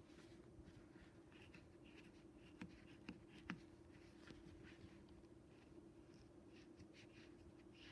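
Faint scratching of a colored pencil drawing on a fabric sock, with a few light taps about midway through, over a faint steady hum.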